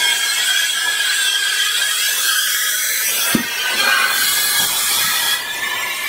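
Shop vac running, a steady high whine from its motor over the rush of air through the hose, with a single knock about halfway through.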